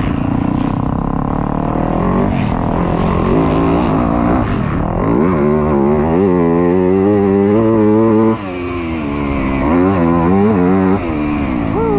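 2024 Yamaha YZ250F's 250 cc four-stroke single-cylinder engine revving up and down as the bike is ridden hard, from the rider's helmet camera. Its pitch climbs and falls with the throttle and drops suddenly twice, about eight and eleven seconds in, at throttle chops or shifts.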